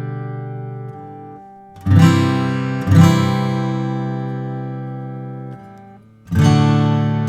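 Taylor 324e acoustic guitar with full chords strummed and left to ring out. A new chord is struck about two seconds in, another a second later, and a third near the end.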